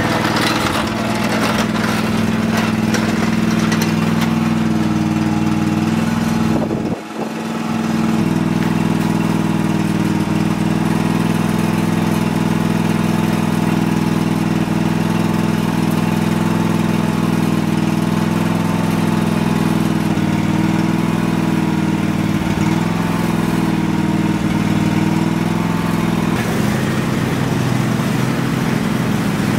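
Husqvarna riding lawn mower engine running steadily, with a brief dip about seven seconds in and a shift in its note near the end.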